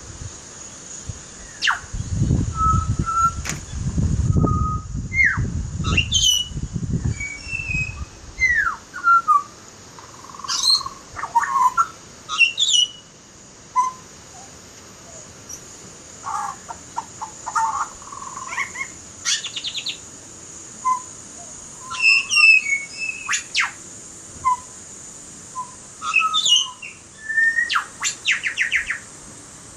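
Butcherbird singing a varied run of short whistled notes, slurred glides and quick chattering trills. A low rumble sits under the first several seconds, and a steady high hiss runs behind.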